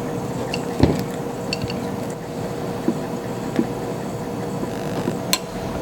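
Thick, set vanilla pudding being scooped and scraped into a bowl of whipped cream, with soft squishing and a few light knocks of the utensil against the bowl.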